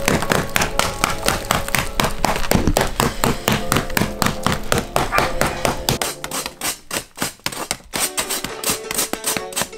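A knife scraping the charred crust off a large loaf of wood-oven-baked bread in quick, repeated rasping strokes. Background music with held notes plays under it.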